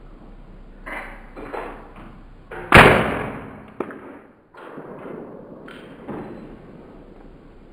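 A single sharp shot from a Colt M4 .22 LR rifle about three seconds in, fading out over a second or so. Softer knocks and clinks come before and after it.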